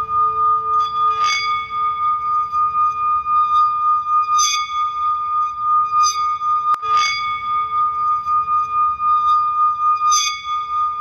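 Singing bowls ringing in long sustained tones whose loudness pulses and wavers, with a bright struck ring several times over them.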